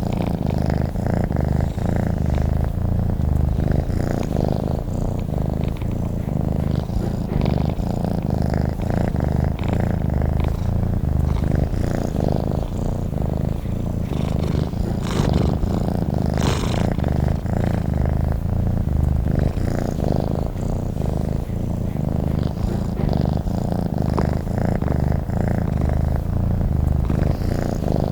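Domestic cat purring steadily and continuously, with a couple of faint brief rustles about halfway through.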